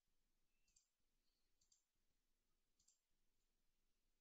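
Near silence with three faint computer mouse clicks about a second apart.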